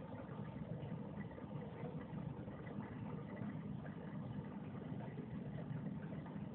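Aquarium pump or filter running, a steady low hum.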